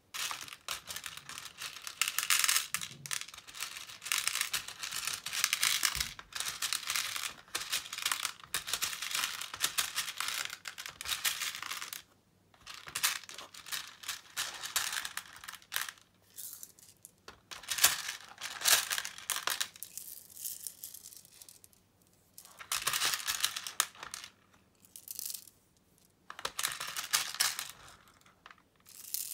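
Plastic pony beads clicking and rattling as hands rake through a loose pile and pour handfuls into the compartments of a plastic organizer box. It comes in long stretches of dense clatter with a few short pauses.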